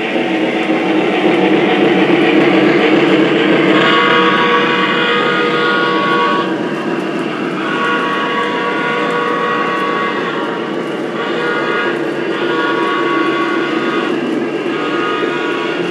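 A sound-equipped model Santa Fe steam locomotive runs past with a steady rumble. From about four seconds in, its chime whistle sounds in a series of long and short blasts.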